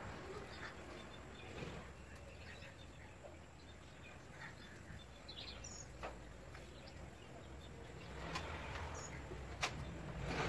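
Faint background noise with a few light clicks and taps from handling and fitting a wooden window frame, most of them in the last few seconds, one sharper than the rest.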